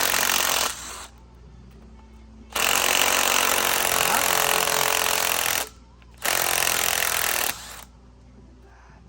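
Impact wrench hammering with a T45 Torx socket, run in three bursts, the middle one about three seconds long, to break loose and spin out bolts.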